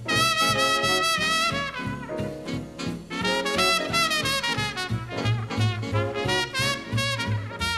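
Background swing-jazz music led by brass horns, with held, wavering melody notes over a pulsing bass line.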